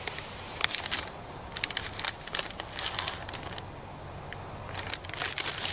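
Plastic MRE ration packets crinkling and rustling as they are handled, in scattered bursts of crackles, with a quieter moment a little past the middle.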